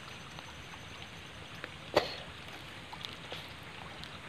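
Red tilapia feeding at the surface of a small pond: one sharp plop about two seconds in and a few faint ticks, over a steady low background hiss.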